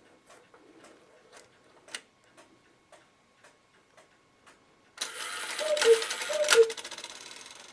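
Antique cuckoo clock ticking at about two beats a second. About five seconds in, the strike train whirs into motion and the bellows sound the two-note cuckoo call twice, each call with a sharp gong strike, then the whir fades away.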